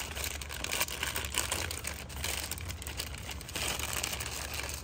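Plastic wrapper crinkling and rustling as a corn dog is worked out of its individual pouch, a continuous run of small crackles.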